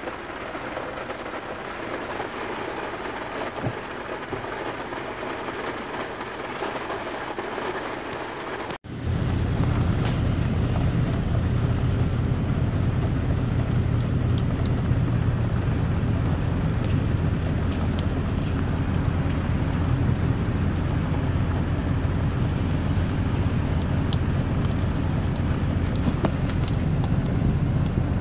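Rain on a car, a soft even hiss with scattered drop ticks. About nine seconds in it cuts to a louder, steady low rumble of car noise, with raindrops still ticking over it.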